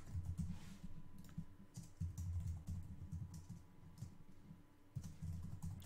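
Typing on a computer keyboard: irregular keystrokes in quick runs, with a short pause partway through.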